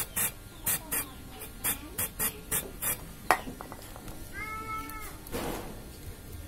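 Short hissing squirts of butane gas from a nearly empty canister pressed into a PVC toy cannon's gas inlet, about nine quick presses in the first three seconds, followed by a click. Near the middle comes a brief arched tonal cry, then a longer hiss.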